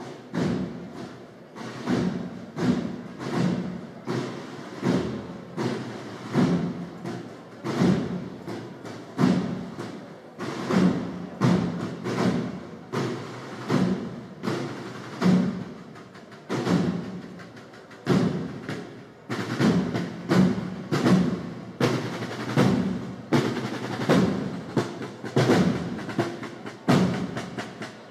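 Drums of a procession band beating a slow, steady march rhythm, about three strikes every two seconds.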